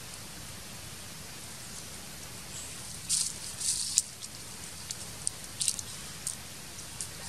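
Crisp rustling and crackling of leaves and twigs as a macaque handles the branch it is climbing. The crackles come in short clusters about three to four seconds in and again from about five to six and a half seconds, over a steady hiss.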